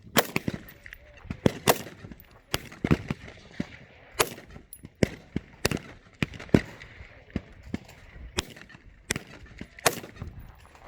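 Rifle fire on a firing range: about twenty sharp, irregularly spaced shots of varying loudness.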